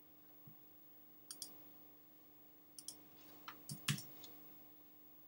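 A few quiet computer mouse clicks, mostly in quick pairs, the loudest about four seconds in, over a faint steady hum.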